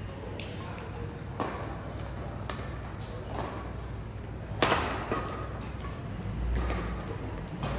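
Badminton rally: rackets striking the shuttlecock with sharp pings about once a second, the loudest hit a little over halfway through, with a short high squeak about three seconds in.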